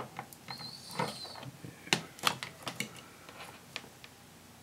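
Clicks, taps and light rattles of multimeter test leads and their plastic probes being handled and untangled, with a short high-pitched squeak lasting about a second, starting about half a second in. The handling noises thin out after about three seconds.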